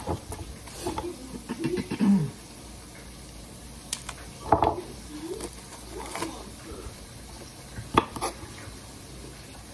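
Kitchen knife slicing an English cucumber on a wooden cutting board: a handful of separate sharp knocks of the blade meeting the board, spaced irregularly a second or more apart.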